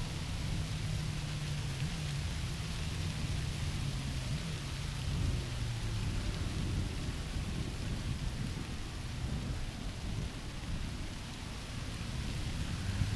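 Jet engine noise from a Boeing 787-9 airliner: a low, wavering drone under a steady rushing noise.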